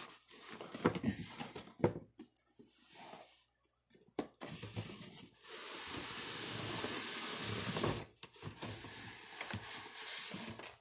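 Cardboard box and foam case being handled: scattered taps and rubbing, then a steady scraping hiss for about two seconds in the middle as cardboard slides against the foam case.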